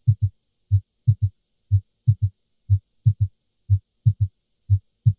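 Stethoscope recording of a heartbeat with an S3 gallop, the 'Ken-tucky' rhythm. Low thuds repeat about once a second: a single thud (S1), then about a third of a second later a close pair (S2 and the extra S3). An S3 is a classic sign of high left atrial pressure in acute heart failure, though it can be normal in young people and in pregnancy.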